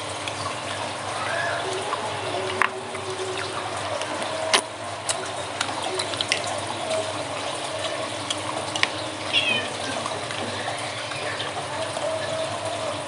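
Steady hiss of rain, with scattered sharp clicks of green mussel shells being handled and pulled apart by hand.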